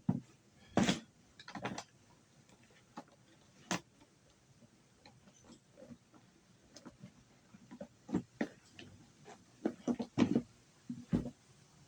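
Irregular light knocks and clicks of hard objects being handled, a few in clusters with quiet gaps between them.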